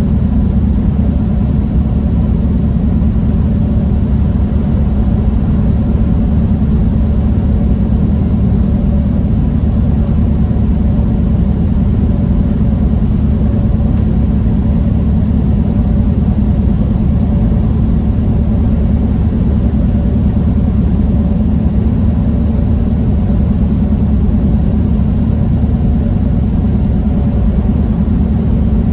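Steady drone of a semi-truck's diesel engine and road noise, heard from inside the cab while cruising at a constant speed, with a low hum that holds one pitch throughout.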